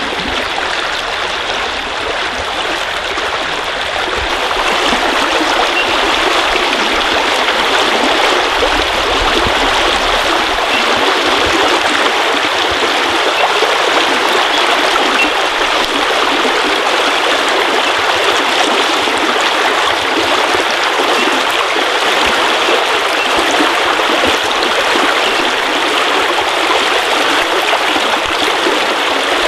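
Water of a shallow stream flowing and rippling over stones, a steady rushing that grows slightly louder about four seconds in.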